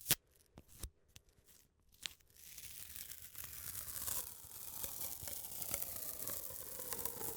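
A few light clicks, then from about two seconds in, tape is pulled out in one long continuous tearing stretch, with a faint tone that slowly sinks in pitch.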